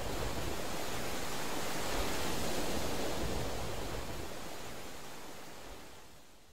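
A steady rushing noise with no tune or beat. It swells slightly in the middle and then fades away toward the end.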